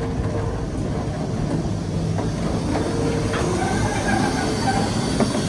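BR Standard Class 9F steam locomotive 92134 rolling slowly past tender first, a steady low rumble of its wheels on the rails with a few light knocks.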